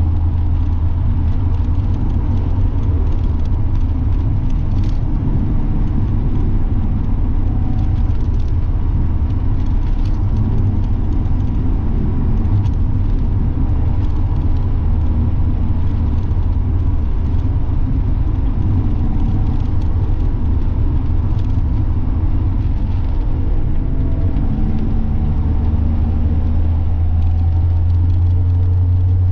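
Mazda Miata NA's four-cylinder engine and exhaust droning steadily at cruise, over tyre and road noise. The low drone grows stronger near the end.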